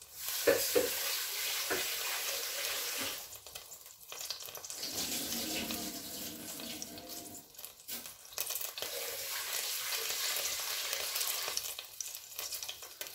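Kitchen tap water running into a pot of rice as the rice is rinsed and water is added. The flow comes in spells: a strong run that eases off about three seconds in, swishing and filling sounds in the middle, and another run until near the end.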